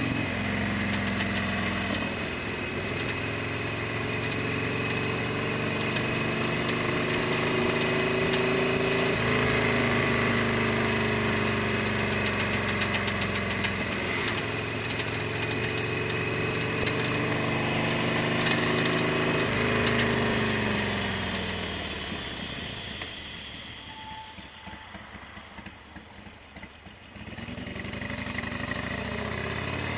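Harley-Davidson Sportster XL1200's air-cooled V-twin running under way, its revs climbing and dropping back about four times as it shifts up through the gears. About two-thirds through it eases off and goes much quieter for several seconds, then picks up again near the end.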